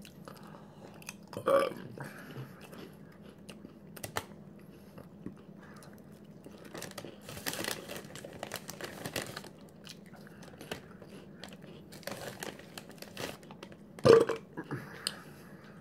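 Crunchy potato chips bitten and chewed close to the microphone, with the chip bag crinkling as a hand reaches in around the middle. A short burp near the end.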